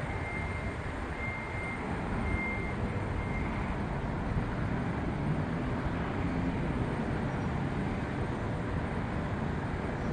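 Twin turboprop engines of a Beech C-99 Airliner droning steadily as it climbs away, a low rumble with a faint high whine that comes and goes in the first few seconds.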